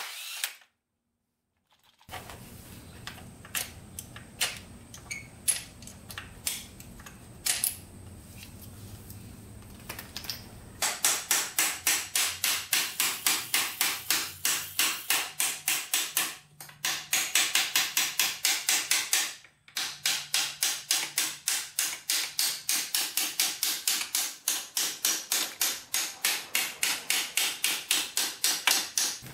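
Scattered light metal knocks, then from about 11 seconds in a long run of steady hammer blows, about four a second with two brief breaks, driving the swingarm pivot bolt out of a dirt bike's frame.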